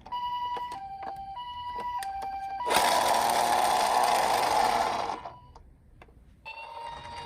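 Toy minicar's electronic ambulance siren playing the hi-lo two-tone "pee-po" call twice, high then low about every half second. Then a louder, noisier sound with a steady tone for about two and a half seconds, a short lull, and another tone starting near the end.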